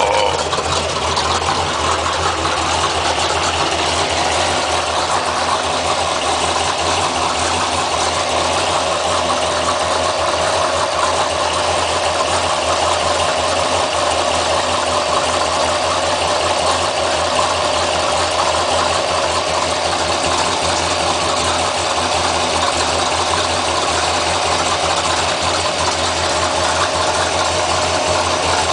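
Engine idling steadily, heard from underneath close to the oil pan, with a constant grinding hum from the bottom end that the owner suspects is the oil pump or a bottom-end bearing wearing itself out.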